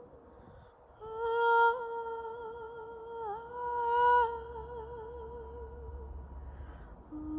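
A woman's wordless singing, with reverb added afterwards. After a brief pause she holds one long high note for about five seconds, dipping slightly in the middle and swelling a little before fading, then starts a lower note near the end.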